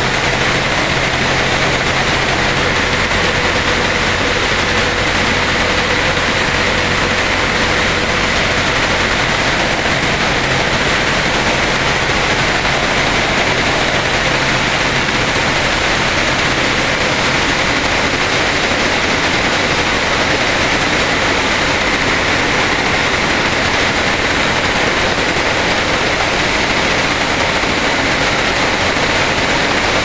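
Maize sheller (corn thresher) running steadily with a loud, continuous mechanical drone and a dense noisy rush as it threshes the cobs and shelled kernels stream out.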